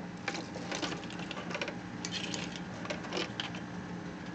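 Irregular light clicks and taps from a small plastic model car being handled, over a steady low hum.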